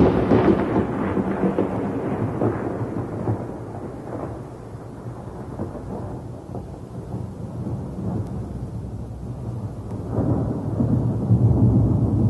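Thunder with rain. A loud clap at the start rumbles away over several seconds, and a second roll of thunder swells about ten seconds in.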